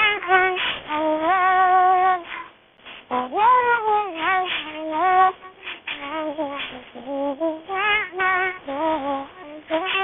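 AI-synthesized singing voice with a cat-meow timbre, made by so-vits-svc voice conversion of a female pop vocal. It sings a melody of held, gliding notes with brief breaks, and sounds dull, with no high end.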